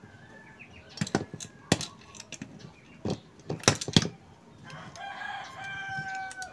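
Scattered clicks and knocks as the metal housing of a spin-dryer motor is handled and turned over. About five seconds in, a rooster crows once, a held call lasting nearly two seconds.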